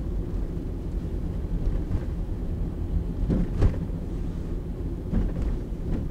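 Road noise inside a small hatchback's cabin on a snowy, icy road: a steady low rumble of snow tires and engine. A couple of short thumps from bumps come a little past the middle.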